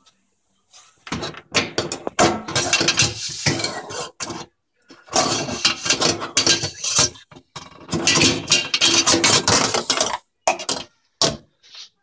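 Dishes and the wire racks of a Kenmore dishwasher clattering and clinking as they are handled, in three long bursts, then a few single clicks near the end.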